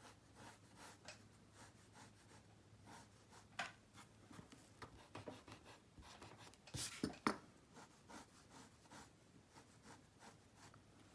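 Mechanical pencil scratching lightly on drawing paper in short strokes, with a few louder strokes a little past halfway.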